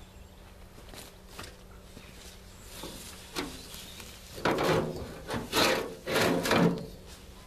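A steel shovel scraping and digging into a heap of gritty, well-rotted manure compost, with a few light knocks at first, then three loud scraping strokes in the second half.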